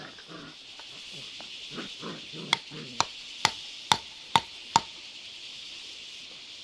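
Six quick, evenly spaced strikes of a hand tool, about two a second, each with a short ring, preceded by softer rustling scrapes. A steady high drone of insects runs underneath.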